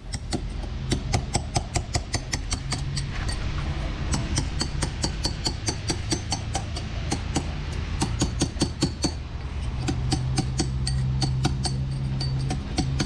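Hammer striking a chisel driven into the bore of a boat's metal shaft strut: rapid sharp metallic blows, several a second, knocking out the remains of the old cutlass bearing. A steady low hum runs underneath.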